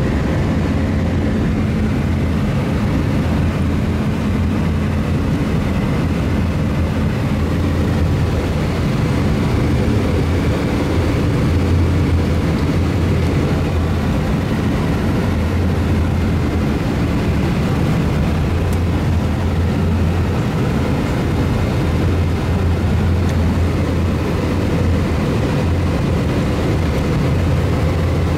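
Steady cabin noise inside an Airbus A320 airliner: a constant low hum under an even rushing drone, unchanging throughout.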